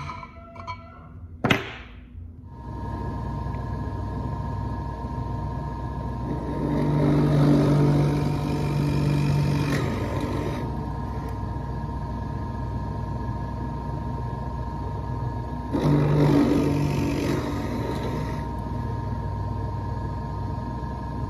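A couple of sharp knocks, then a power drill's motor starts and runs steadily. It grows louder and heavier twice, from about six to ten seconds in and again around sixteen seconds, as the bit cuts through the wood.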